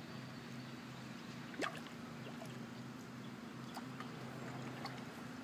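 Small water plops and drips at the surface of shallow water, with one sharper plop about a second and a half in and a few fainter ticks later, over a steady low hum.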